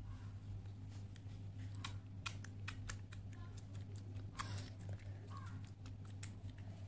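Soft slime being stretched and squished by hand, giving faint, scattered clicks and crackling pops.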